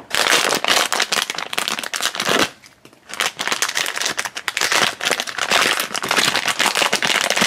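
Foil blind bag crinkling and crackling as hands squeeze it and work it open, with a short lull about two and a half seconds in.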